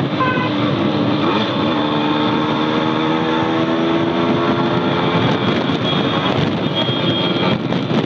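Motorcycle engine running under way in traffic, its note climbing a little from about two seconds in as the bike picks up speed, with wind rushing over the microphone.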